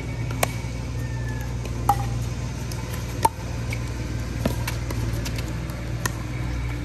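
Pickleball rally: a hollow plastic ball struck back and forth with paddles and bouncing on a concrete court, giving sharp pops about every second and a half, five loud ones in all. A steady low hum runs underneath.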